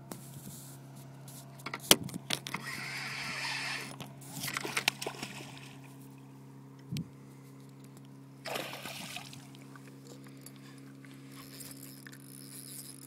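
A boat engine humming steadily at idle, with a few short rushing bursts and clicks about two, four and eight and a half seconds in, and a single knock about seven seconds in.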